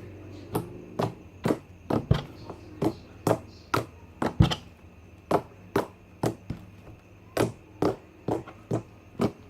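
Plain glue-and-borax slime being squeezed and poked to make popping sounds: a steady run of short, sharp pops, about two a second. The slime is jiggly and clicky rather than stretchy, made with glue that had gone runny.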